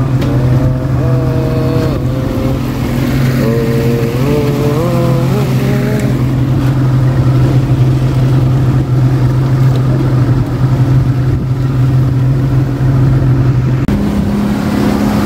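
A small fishing boat's motor drones steadily while underway, over rushing wind and water noise. Near the end the steady hum shifts to a higher pitch.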